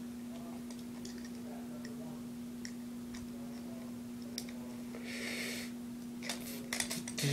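Faint plastic clicks and rustling of toy parts being handled and unhooked, with a brief rustle about five seconds in and a quick run of clicks near the end, over a steady low hum.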